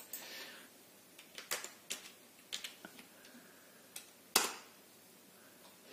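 A handful of separate faint clicks from a computer keyboard and mouse as a value is typed into a spreadsheet cell, the sharpest click about four seconds in.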